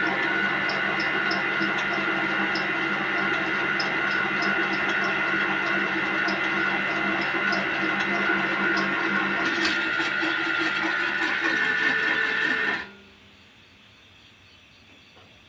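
Mini lathe running steadily after its repair, a motor whine with faint regular ticking, which cuts off suddenly near the end.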